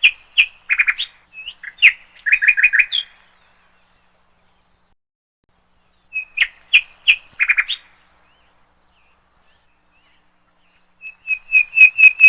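Parrot chirping in three quick bouts of sharp, repeated chirps: one at the start, one about six seconds in, and a faster run near the end, with silent pauses between them.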